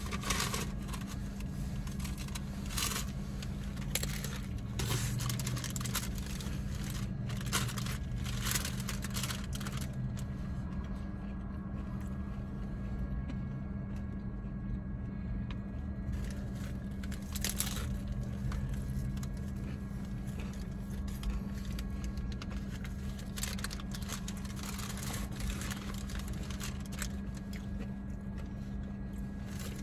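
Crunching and chewing of a hard-shell taco, with a paper wrapper crinkling and rustling now and then, in short scattered bursts over a steady low hum in a car's cabin.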